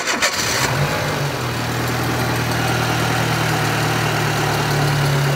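A Renault Clio II 1.6 petrol engine started on the starter for a test run: a brief crank in the first moment, then it catches, the note rising a little about a second in before settling into a steady idle.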